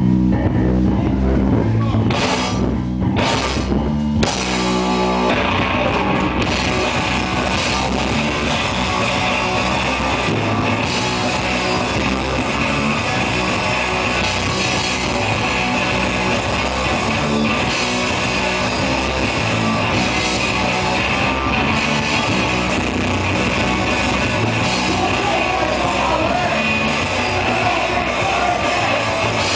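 Live rock band playing loudly on electric guitars and drum kit. It stops short a few times in the opening seconds, then settles into a steady full-band groove.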